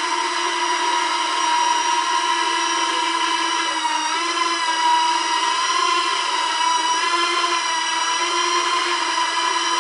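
Small toy quadcopter drone hovering, its motors and propellers giving a steady high whine made of several tones; the pitch wavers briefly about four seconds in.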